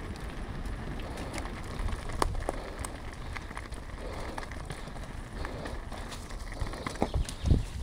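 Mountain bike rolling downhill on a rough surface: a steady crackle of tyres on grit, with scattered sharp clicks and rattles from the bike and a few louder knocks near the end.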